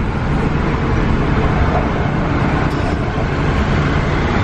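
Steady road and engine noise of a moving car, heard from inside the cabin: a constant low rumble with tyre hiss over it.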